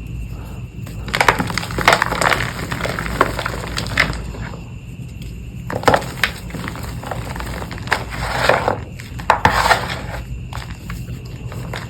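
Reformed chalk (pressed chalk powder) being crushed and crumbling in crackly bursts: a long one about a second in, then shorter ones around the middle and later.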